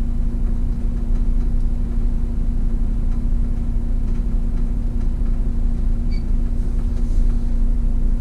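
City bus engine idling while the bus stands still, heard from the driver's cab: a steady low rumble with a constant hum.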